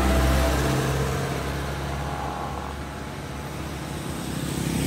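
Minibus engine and tyres passing close by, loudest at first and then fading as it drives away on the asphalt; road noise builds again near the end.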